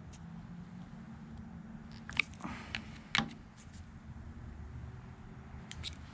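Light clicks and taps of a screwdriver and the metal parts of an S&S Super E carburetor being handled on the bench: a cluster about two to three seconds in and a couple of faint ones near the end, over a faint steady low hum.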